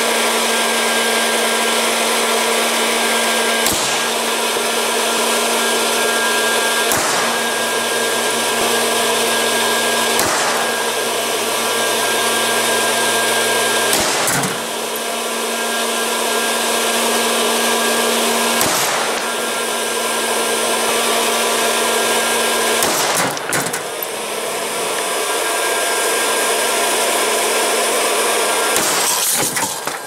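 West Bend hot-air corn popper running, its fan and heater giving a steady whir with a low hum, broken by a sharp crack every three to five seconds.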